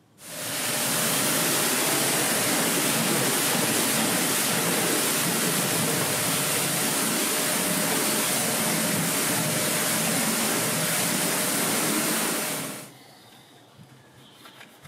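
Pressure washer jet spraying alloy wheels and tyres: a loud, steady hiss that starts just after the beginning and cuts off suddenly about 13 seconds in.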